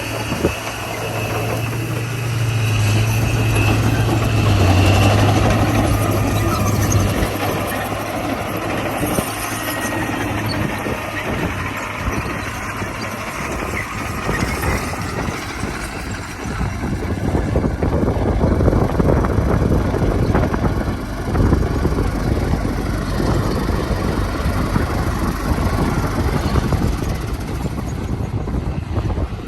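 Komatsu D41P bulldozer's diesel engine running steadily under load, with a low hum in the first few seconds giving way to a dense clatter of rattles and knocks from about halfway, as of tracks and blade working gravel.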